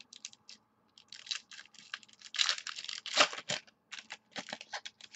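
Baseball card pack being torn open and its cards pulled out and handled. It is a run of short crinkly rustles and clicks, loudest in the middle.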